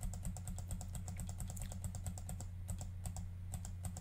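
Computer keyboard keys clicked in a quick run, about eight a second, thinning to scattered clicks in the last second or so, as a hex editor is scrolled page by page. A steady low hum runs underneath.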